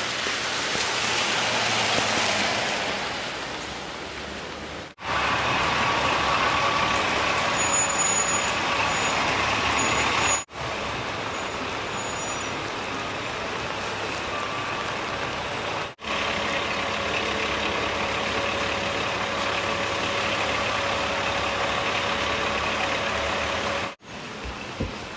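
Road traffic in heavy rain: vehicle engines running over a steady wash of rain and wet-road noise. It is broken by several abrupt cuts.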